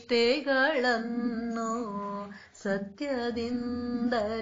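A woman singing a Kannada devotional song solo, drawing out the words in long notes with quick ornamental turns, and a short breath pause about halfway through.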